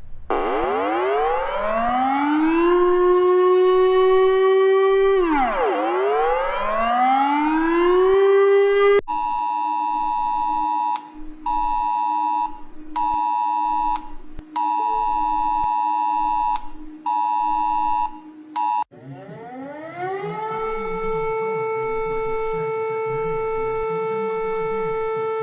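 Emergency alert audio of an Amber Alert EAS alarm. A siren rises in pitch to a steady tone, drops, and rises again. Then a steady multi-tone alert sounds in on-off bursts for about ten seconds, and near the end another siren rises to a steady tone.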